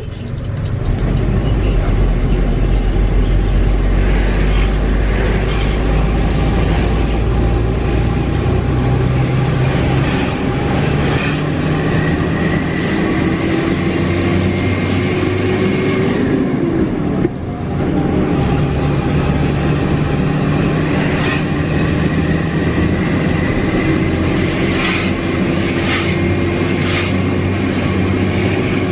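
Mitsubishi Fuso Fighter truck's turbo diesel engine heard from inside the cab, pulling under load with a thin whine that rises slowly as the truck gathers speed. About 17 seconds in, the sound dips and the whine falls for a gear change, then the engine and whine climb again.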